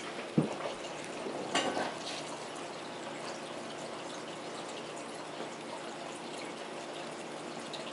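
Steady rush of a running water tap. A single sharp thump comes just under half a second in, and a short rustle or clatter follows about a second later.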